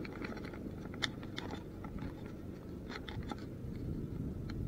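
Irregular small clicks and crackles from a spinning rod and reel being handled and wound, over a steady low rumble of wind on the microphone.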